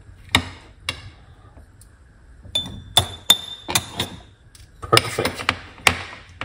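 Metal spoon clinking against a glass jar and glass bowl while chopped lemon is spooned in: a run of sharp taps, one with a brief glassy ring, then a scraping, rustling stretch near the end.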